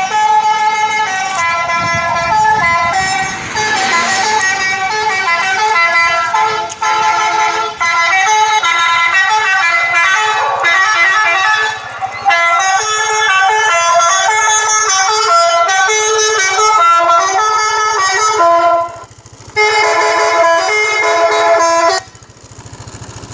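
Electronic telolet bus horn sounding through a horn loudspeaker rather than on air, playing a fast melody of short, stepped multi-tone notes. It breaks off briefly a little before the end, then stops about a second before the end, leaving a low hum.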